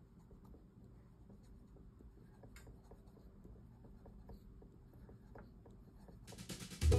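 Coloured pencil scratching across paper in many short strokes as a picture is coloured in, quiet throughout and getting quicker and louder near the end.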